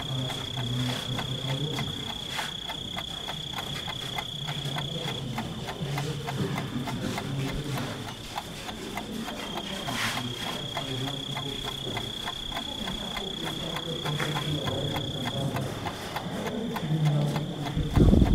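Footsteps of a crowd shuffling along a hard-floored corridor, with a low murmur of voices. A steady high-pitched whine runs over them and cuts out twice, and there is a loud thump near the end.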